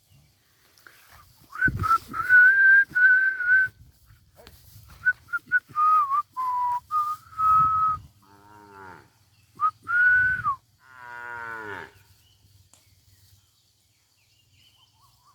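A person whistling in several short phrases on one clear, wavering tone, with two cattle moos about eight and eleven seconds in, each falling steeply in pitch.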